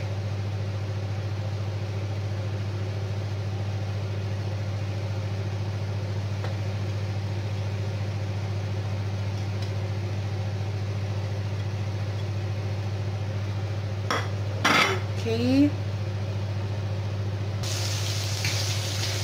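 Chicken breasts frying in a grill pan: a faint sizzle under a steady low hum, and a knock of a utensil against the pan about fifteen seconds in. Near the end the sizzle turns loud and bright as the pieces are turned over with a spatula.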